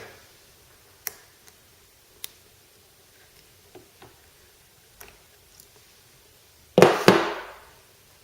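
Scattered small clicks and taps of plastic parts being handled on a steam mop, then two loud knocks in quick succession near the end.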